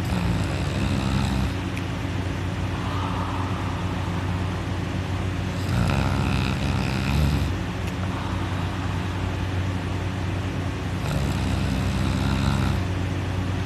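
A sleeping person snoring loudly: three rough snores about five and a half seconds apart, over a steady low hum.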